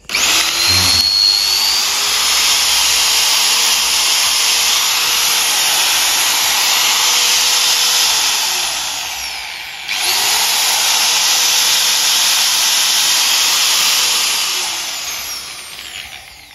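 Makita 9553B angle grinder motor run with no load: it spins up with a rising whine and runs steadily. It is switched off and winds down just before ten seconds in, is started again at once, and winds down again near the end. This is a test run of the grinder after its armature (rotor) was repaired.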